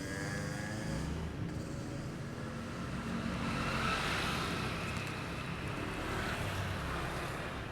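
Vehicle engine hum and road noise while travelling, with a swell of louder road noise about four seconds in.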